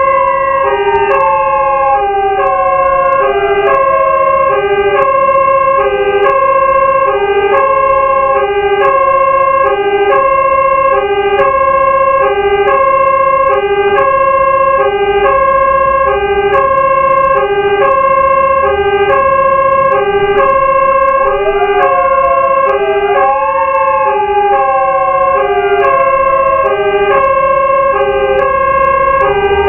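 Fire engine siren in hi-lo mode: two tones alternating steadily, roughly one and a half cycles a second. Over it a second wailing siren sweeps slowly down in pitch, climbs sharply a little past twenty seconds in, then falls again.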